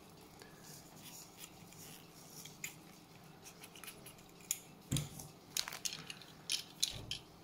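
Small diecast toy cars being handled and rummaged in a cardboard box, with the plastic bags around them crinkling. Scattered light clicks and taps get busier in the second half, with a soft thud twice.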